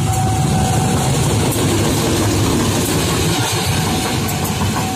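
Diesel locomotive running light past at close range, its engine rumbling low and loudest mid-way as it goes by. A steady high tone is heard at the start and again near the end.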